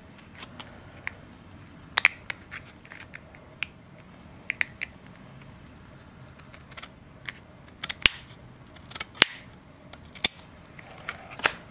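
Scissors snipping small slivers off the edges of thin pre-cut plastic servo covers: a dozen or so short, sharp snips at uneven intervals.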